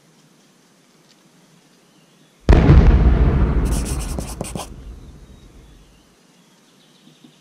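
A cinematic boom sound effect: a sudden deep explosion-like hit that dies away over about three and a half seconds, with a brief burst of crackling about a second after it.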